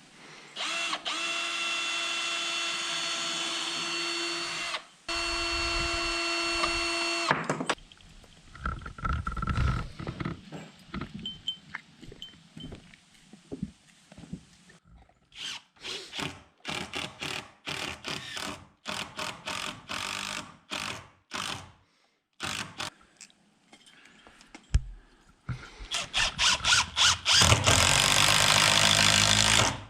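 Cordless drill running, first in two steady runs of a few seconds each, then in many short trigger bursts in the second half, as screws are put in to fix the pre-hung door frame.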